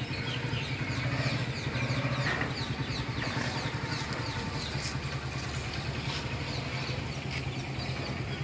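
A steady low engine hum of an idling vehicle, with birds chirping over it in many short, quick falling notes.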